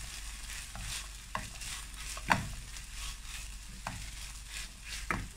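Minced meat, onion and chickpeas sizzling in a non-stick frying pan while a silicone spatula stirs them. A steady sizzle runs under about five short scrapes and knocks of the spatula against the pan, the loudest a little over two seconds in.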